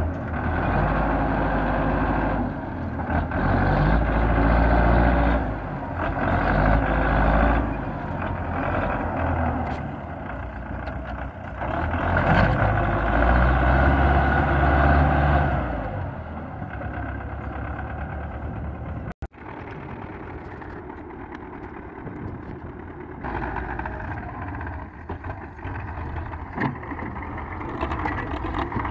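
Belarus MTZ-510 tractor's diesel engine revving in repeated loud surges under heavy load as the tractor strains, rear wheels dug into soft mud and sand, to pull a stuck loaded trolley. After a sudden break about two-thirds of the way through, a tractor engine runs more quietly and steadily.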